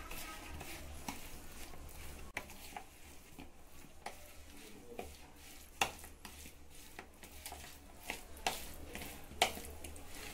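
A hand mixing paneer cubes with yogurt and spice powders in a bowl: soft wet squishing with scattered light clicks of the pieces and fingers against the bowl, a couple of them sharper, over a low steady hum.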